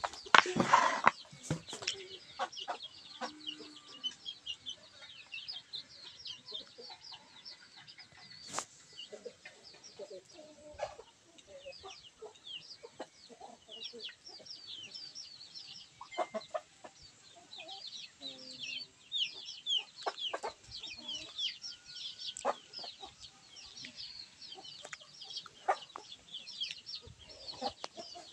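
Chickens in a yard: a steady stream of short, high peeping chirps, typical of chicks, with a few lower clucks. A loud brief rustle or knock comes about a second in, and scattered small knocks follow.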